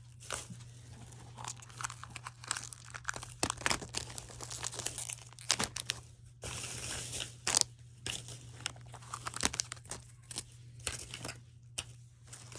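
Small plastic blind-bag packaging being crinkled and torn open by hand, with irregular sharp clicks and rustles as the figures are pulled out.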